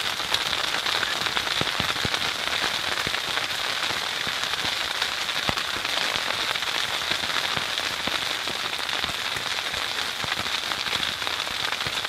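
Steady patter of icy rain falling on a surface, a dense hiss with many small irregular ticks.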